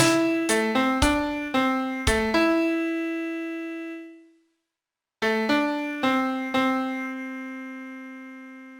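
Solo piano playing a slow song melody one note at a time. Notes fall about every half second, then a long note fades out and there is about a second of silence. A new short phrase follows and ends on a long note left to die away.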